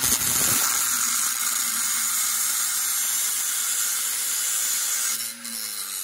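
Electric angle grinder with an abrasive cutoff disc cutting a small metal tab off a brake pad's backing plate: a harsh, steady grinding hiss over the motor's whine. Near the end the motor's pitch starts to fall.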